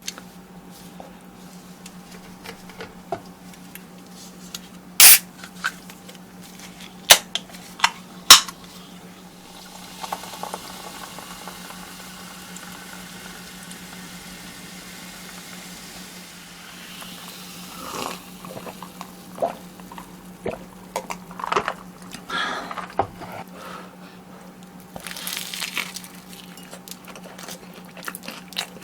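Close-miked eating: crisp crunches of fried chicken drumsticks being bitten, with wet squishing of nacho cheese sauce. The loudest crunches come in a group about five to eight seconds in, and a soft steady hiss lasts several seconds before more crackly chewing and handling.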